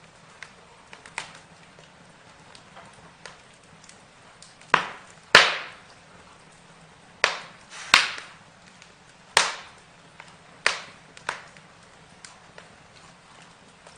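Burning wood crackling, with a run of about seven loud, sharp pops through the middle and small ticks around them, over a faint steady hiss.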